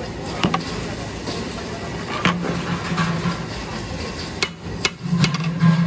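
Long metal stirring paddle knocking against the side of a large aluminium cooking pot as it works through a mass of chopped greens, with about five sharp clanks over a few seconds.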